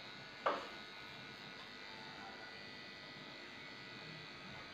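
Corded electric dog-grooming clipper running with a steady hum as it trims the fur on a dog's paw. About half a second in, a brief, loud sound that falls in pitch cuts across it.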